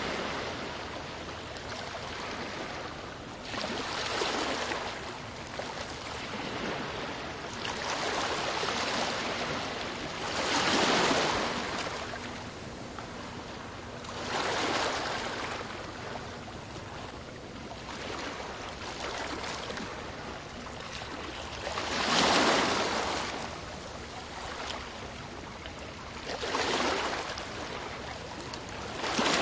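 Sea waves: a steady hiss of surf that swells into a louder surge every few seconds and falls back, the two biggest surges about a third of the way in and about three-quarters through.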